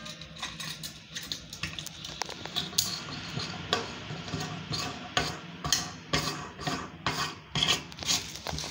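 Chrome sink strainer being pressed and twisted by hand into the drain hole of a stainless steel sink: irregular metal scraping and rubbing with sharp clicks and knocks.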